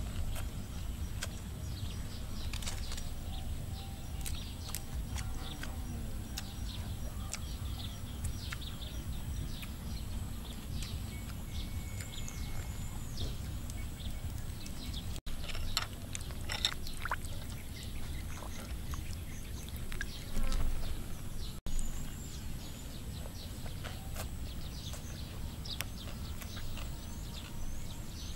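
Outdoor ambience: birds chirping over a steady low rumble, with scattered clicks and a louder burst of small noises about two-thirds of the way through.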